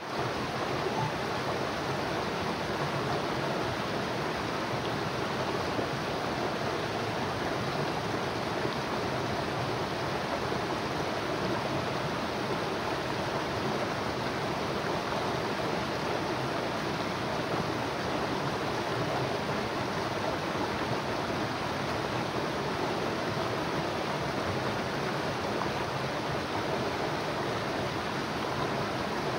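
River water flowing steadily, an even rushing noise with no breaks.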